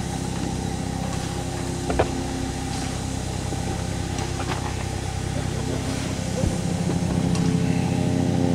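An engine running steadily at idle, a little louder near the end, with a sharp click about two seconds in.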